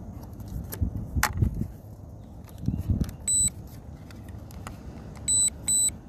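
Knocks and rustling from something being handled, then three short high electronic beeps at one steady pitch: one about three seconds in and two close together near the end.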